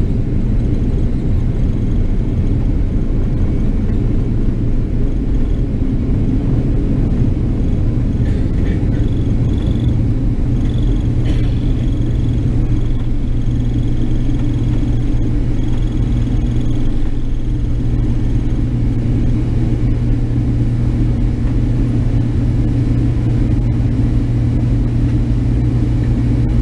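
Boeing 767's jet engines at takeoff thrust, heard from inside the cabin: a loud, steady rumble through the takeoff roll, lift-off and initial climb. A faint high whine comes and goes midway.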